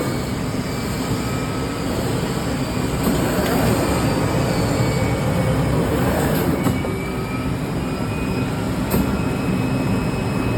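CNC fabric cutting machine running while it cuts: a steady mechanical rumble and hiss, with faint motor whines sliding up and down in pitch and a few sharp clicks in the second half.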